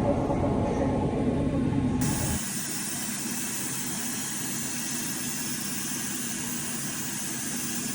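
Deprag W5 Max milling machine running while it mills a bruxism splint. A dense low rumble lasts about two seconds, then switches suddenly to a steady, even hiss.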